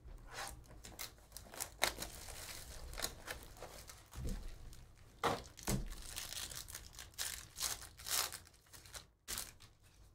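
Foil wrapper of a trading-card pack being torn open and crinkled by hand, a long run of crackling, with a few soft knocks around the middle.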